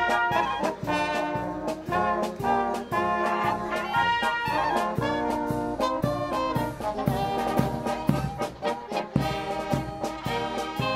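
Brass band music, trumpets and trombones playing a tune in a steady rhythm.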